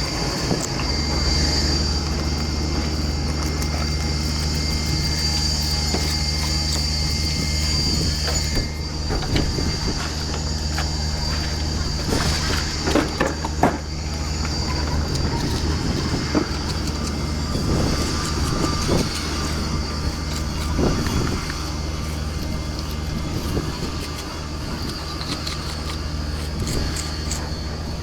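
An engine running steadily with a constant low hum, a high whine that is strongest for the first eight seconds or so, and scattered knocks and clanks.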